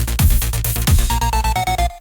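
Electronic dance music with a deep kick drum and heavy bass. In the second half a short synth line steps downward in pitch, then the music cuts out for a moment just before the beat comes back in.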